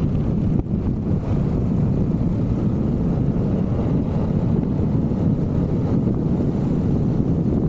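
Steady low wind rumble on the microphone while riding a Vespa GTV 300 scooter.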